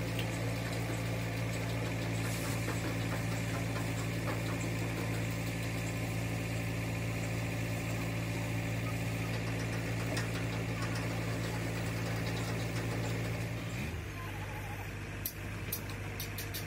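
An engine running steadily at a constant low pitch. About fourteen seconds in, the pitch briefly rises and then settles lower, followed by a few sharp clicks.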